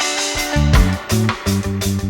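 Background music: rock-style band with electric guitar and drums playing short, punchy rhythmic chords.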